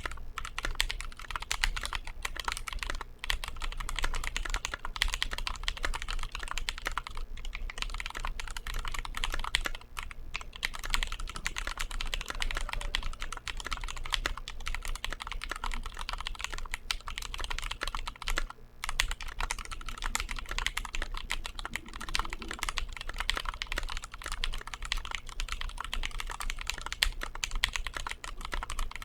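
Continuous fast typing on a Glorious GMMK Pro mechanical keyboard with TTC Wild switches and JTK Suited Assassin keycaps: a dense stream of key clacks with a few brief pauses.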